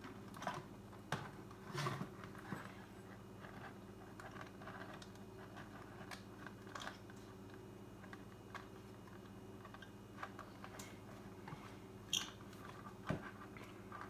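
Scattered light clicks and taps of small parts of a car radio's screen unit being handled and worked apart by hand, over a steady low hum.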